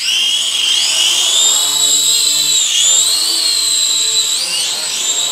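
SAN HUAN SH5W toy quadcopter's motors and propellers whining in flight, the high pitch rising and dipping as the throttle changes.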